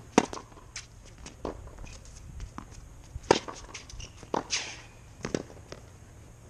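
Tennis rally: two loud racket-on-ball forehand hits about three seconds apart, with fainter ball bounces, the opponent's hits and shoe steps on the hard court between them.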